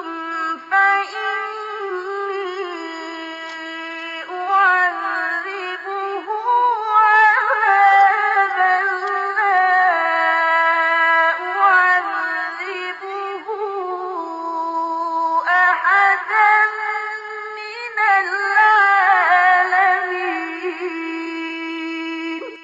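Male Quran reciter chanting a long, ornamented melodic phrase in the mujawwad style, the voice holding a high pitch with slides and trills, cutting off sharply near the end.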